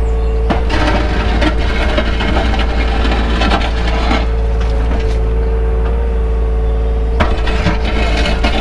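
Takeuchi excavator's engine running steadily, heard from the cab, while the bucket scrapes mud and grit across the hard track surface with rough scraping and knocks, from about half a second in to around four and a half seconds and again near the end.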